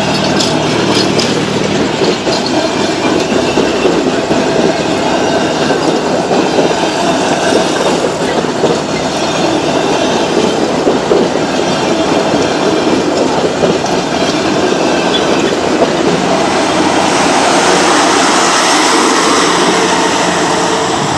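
Passenger train rolling past at low speed, steel wheels clattering over the rail joints with some thin wheel squeal. It grows a little louder near the end.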